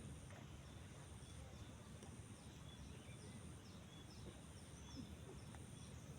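Quiet riverside ambience: a low steady rumble, a thin high insect-like whine with brief breaks, and faint scattered bird chirps.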